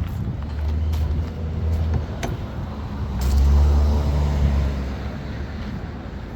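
A motor vehicle's engine running close by, swelling to its loudest about three to five seconds in as it passes, then fading.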